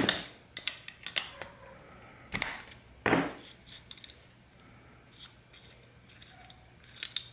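Sharp metal clinks and clacks of a wrench and carburetor parts being handled on a workbench as the float bowl is taken off the carburetor. The clinks come irregularly, loudest right at the start and about three seconds in, with a short cluster near the end.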